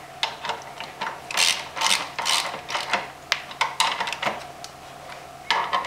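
Socket ratchet clicking in short runs on its back-and-forth strokes as it tightens the lower brake caliper bracket bolts.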